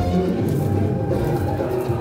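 Music playing over loudspeakers.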